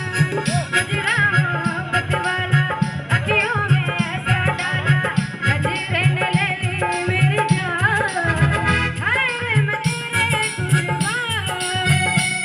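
Indian folk-style song: a melody line with dholak or tabla-type hand-drum beats keeping a steady rhythm.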